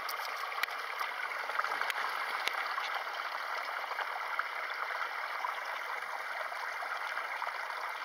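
Steady rushing of water washing on a stony shore, with a few faint clicks in the first couple of seconds.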